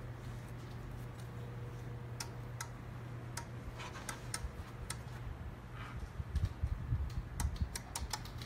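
Scattered small clicks and taps of handling over a steady low hum. The clicks come closer together near the end, with a few dull thumps among them.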